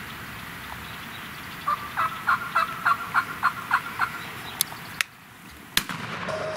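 Merriam's wild turkey calling: a run of about nine short, evenly spaced yelping notes over two and a half seconds. A few sharp clicks follow, and music comes in near the end.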